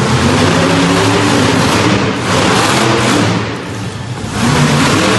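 Monster truck engine revving hard in loud surges as the truck climbs over crushed cars. It eases off briefly about three and a half seconds in, then revs up again near the end.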